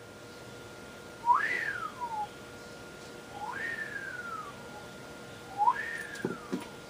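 A whistled call repeated three times, about two seconds apart, each a quick upward swoop followed by a slower falling glide. A couple of soft thumps come near the end as the cat jumps.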